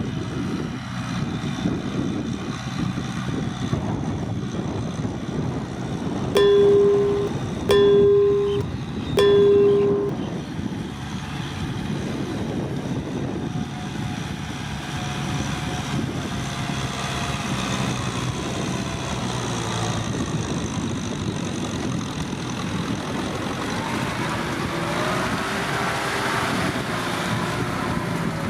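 Kubota M6040SU tractor's diesel engine running steadily while ploughing mud, with three loud horn honks, each under a second, starting about six seconds in.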